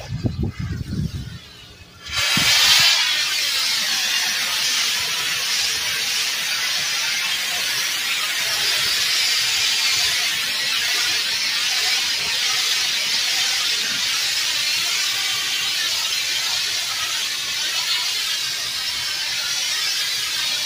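Pressure-washer wand spraying a high-pressure jet of water across a concrete patio: a steady, loud hiss that starts suddenly about two seconds in, after a few low knocks. This is the power rinse that flushes loosened dirt and dirty water off the slab after surface cleaning.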